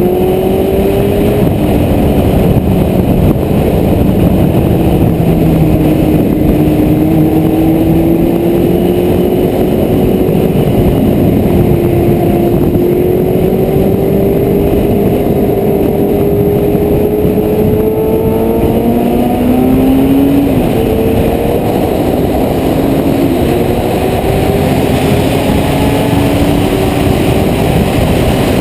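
Honda CBR1100XX Blackbird's inline-four engine running at track speed, heard through heavy wind rush on its onboard camera. The engine note climbs slowly and drops back a few times as the bike accelerates and shifts.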